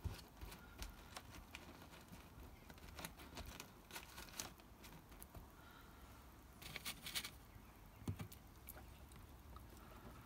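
Faint soft pats and rustles of hands pressing wet plaster bandage onto a newspaper-formed hill, then a short cluster of crinkly clicks about seven seconds in and a light knock about a second later.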